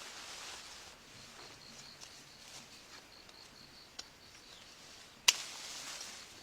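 Quiet outdoor background with a faint high chirp repeating about three or four times a second, a small click about four seconds in and one sharp, loud click about five seconds in.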